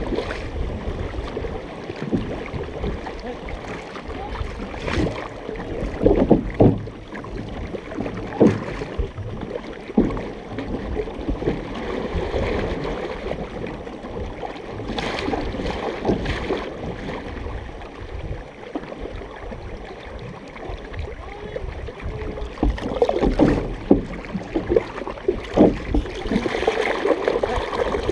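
Water washing and splashing along the hull of a large canoe as a crew paddles it, heard from just above the waterline. Irregular sharper splashes from paddle strokes cut in, more of them near the end.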